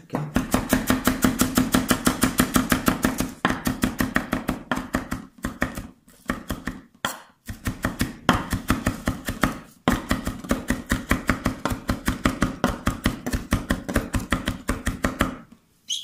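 Chef's knife rapidly chopping fresh parsley on a wooden cutting board: fast, even runs of blade strikes on the wood, several a second, broken by a few short pauses.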